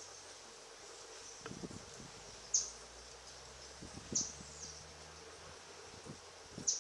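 A steady high insect drone with a short, sharp, high chirp that drops in pitch, heard three times about one and a half to two and a half seconds apart. Faint low soft rustles or knocks come in between.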